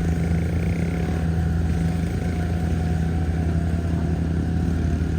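Heavy farm machine's engine running steadily at a constant speed, a deep, even drone.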